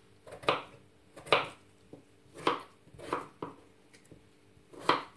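A kitchen knife cuts through a raw peeled potato and knocks on a wooden cutting board, about six irregularly spaced cuts.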